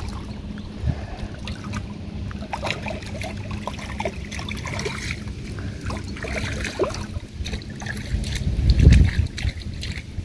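Shallow lake water splashing and trickling as a large carp is released by hand and swims off along the surface, with a louder low swirl of water about nine seconds in.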